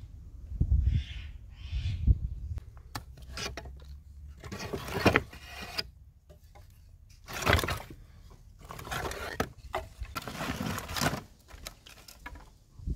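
Old wooden planks knocking and scraping against each other as they are handled and shifted, with several dull knocks and longer rasping scrapes.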